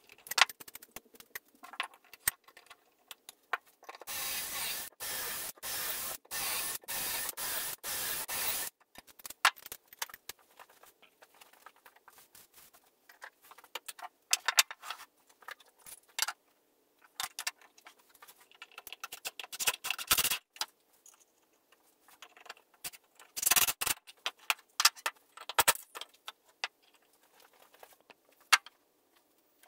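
Workshop handling sounds: irregular clicks, knocks and scrapes of wooden boards, a pocket-hole jig and tools being picked up and set down on a workbench. A few seconds in there is a stretch of dense hiss-like noise chopped into about seven short pieces.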